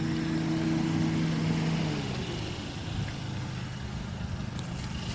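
Steady mechanical hum of running outdoor air-conditioner units. A pitched drone fades away with a slight drop in pitch about two seconds in, leaving a lower steady hum.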